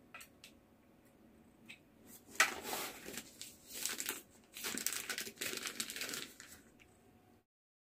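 Plastic bags crinkling as they are handled and lifted out of a box, in two bursts of rustling, after a few light clicks at the start.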